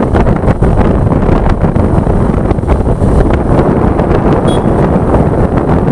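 Loud wind buffeting on the microphone of a phone carried on a moving vehicle at speed, a dense, unsteady rush of noise.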